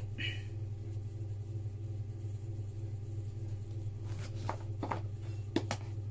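Light clicks and scrapes of hands working at a cardboard phone box and its seal, in a cluster about four to six seconds in, over a steady low electrical hum.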